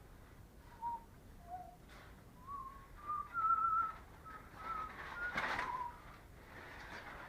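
A string of short whistled notes, single clear tones that mostly step upward in pitch, one held note wavering. A brief rustling noise comes about five and a half seconds in.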